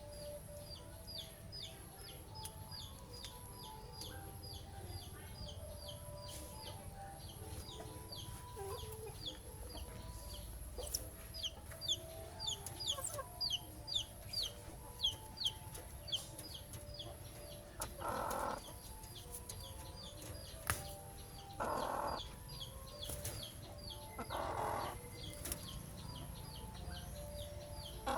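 Chickens clucking, with a fast run of short high chirps, about four a second, through the first half. Then come four short, louder squawks spaced a few seconds apart.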